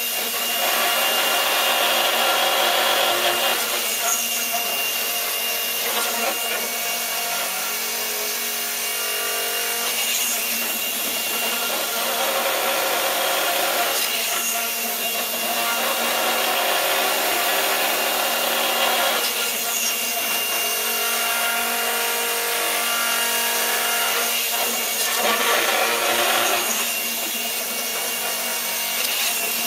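Gyroscopic inertial thruster running: its motor-driven spinning gyros give a steady machine whine with several pitches, swelling and easing every four to six seconds as the mechanism cycles.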